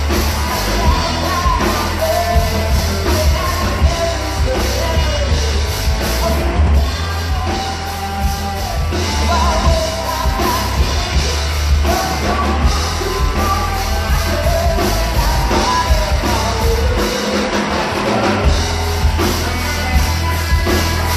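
Live rock band: a woman singing lead into a microphone over electric guitar and drums, with a heavy low end that drops out briefly near the end.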